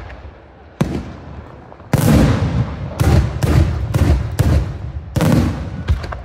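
Daylight fireworks shells bursting overhead: a string of loud bangs, roughly one a second with a few closer together, each trailing off in a low rumbling echo.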